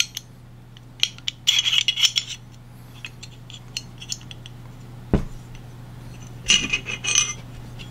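Steel pistol parts clicking and scraping against each other as the threaded barrel of a stripped HK USP 45 Compact Tactical is worked out of its slide. A flurry of clicks comes about a second in, a single sharp knock about five seconds in, and another flurry near the end.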